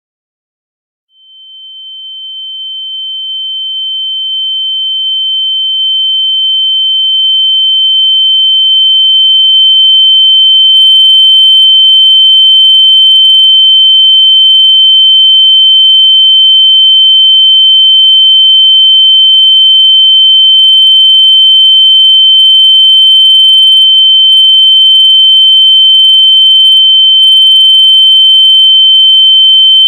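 Electronic pure tone imitating tinnitus (ear ringing). It fades in from silence about a second in, swells over roughly ten seconds to full loudness, and then holds as one steady high-pitched ring.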